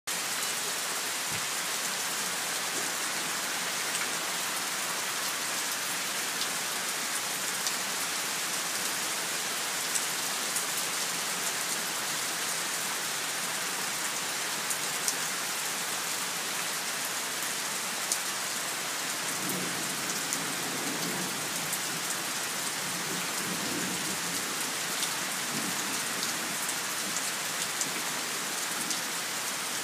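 Steady rain falling on a lawn, a concrete sidewalk and a puddle, with individual drops ticking sharply here and there.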